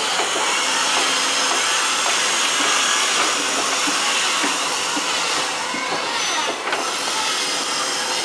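Boatyard work noise: a steady hiss, as from woodworking power tools, with scattered light knocks and clicks.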